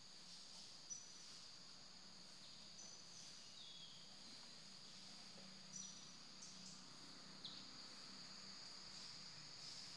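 Faint steady high-pitched drone of forest insects, with short bird whistles and chirps a few times.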